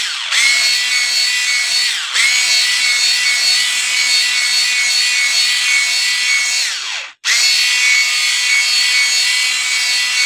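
Electric hand mixer running steadily, its beaters churning thick cream cheese frosting in a plastic bowl. Its motor whine sags and picks back up near the start and again about two seconds in, then stops for a moment about seven seconds in and starts again.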